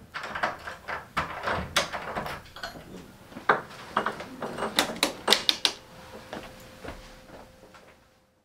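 A glass shop door being opened and let shut: a quick run of clicks and knocks from the handle and latch, loudest about halfway through, with rustling between them, dying away near the end.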